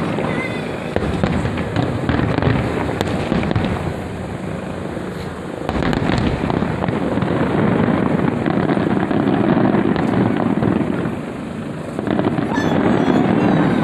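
Fireworks display: aerial shells bursting in a continuous barrage. The loudness surges about six seconds in and again near the end.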